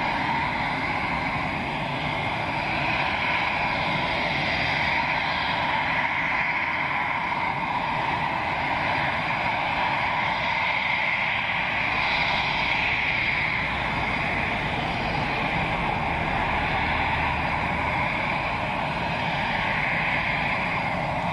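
Eurofighter Typhoon's twin EJ200 turbofan engines idling with a steady jet whine and rushing noise.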